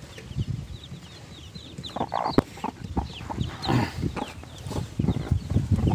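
Newly hatched local chicks peeping rapidly and repeatedly in high, short cheeps, with the mother hen clucking low among them. A single sharp click sounds about two and a half seconds in.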